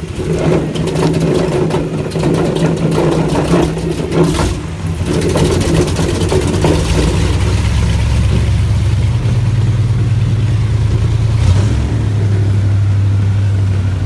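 Airboat's big V8 engine running steadily, close behind the seats; its pitch drops to a lower, stronger hum about halfway through.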